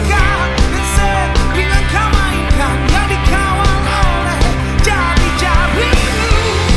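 Rock band playing live: guitars, bass and drums on a steady beat, with a lead melody line that bends and wavers in pitch over the top.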